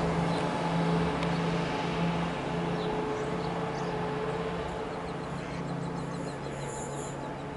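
Class 170 Turbostar diesel multiple unit approaching along the platform, its underfloor diesel engines giving a steady hum that slowly eases, with a brief high squeal near the end.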